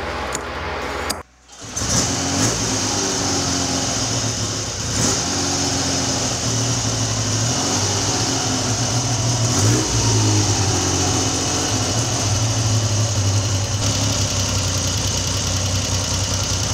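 Triumph Trident T160's three-cylinder engine idling steadily, after a brief gap about a second in. It is being set up on the pilot air screw after running a bit lean and cutting out.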